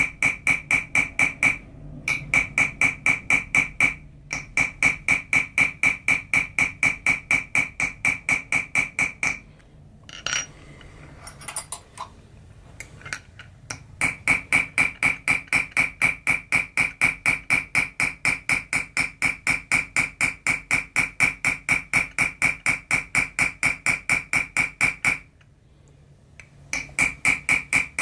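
Chasing hammer tapping a steel chasing tool into 0.6 mm copper sheet set in pitch: a steady run of quick light strikes, about five a second, each with a high ringing ping from the tool, as lines are traced into the copper. The tapping stops briefly a few times and for about four seconds near the middle, where only a few light clinks of metal are heard.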